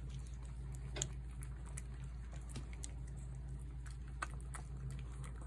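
Cat eating wet food from a plate: scattered small, wet clicks of chewing and lapping, with a sharper click about a second in and another just after four seconds, over a steady low hum.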